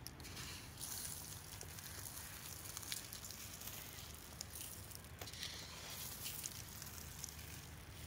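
Dry breadcrumbs being sprinkled by hand onto a coated pork tenderloin and the wooden board under it: a light, uneven rustle with scattered faint ticks as the crumbs land.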